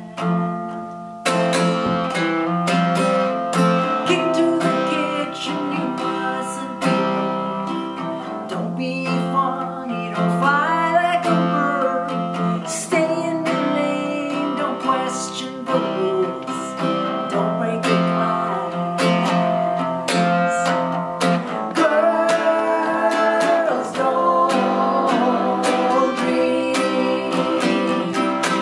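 A woman singing a song, accompanying herself on a strummed acoustic guitar.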